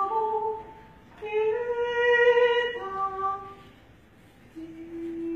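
Solo female voice singing unaccompanied. A short phrase comes first, then a longer high note held for about two seconds. Near the end a lower note is held steadily.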